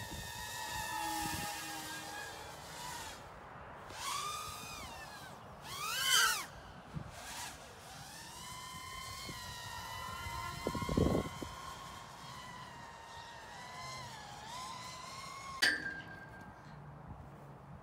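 Small four-inch FPV racing quadcopter's motors whining, the pitch rising and falling with the throttle as it flies around, with louder swells as it passes close. A short, sharp sound cuts in about three-quarters of the way through.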